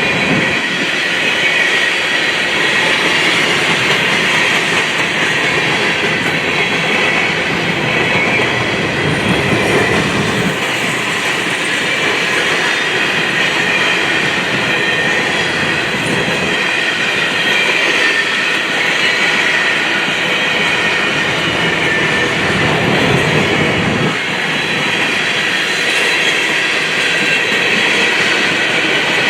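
Freight train cars rolling past, a steady loud noise of steel wheels on rail with faint squeal, continuing without a break.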